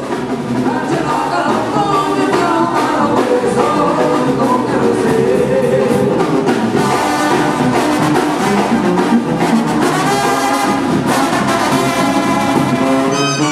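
Mexican banda music at a dance: trumpets and trombones playing with a lead singer, loud and steady.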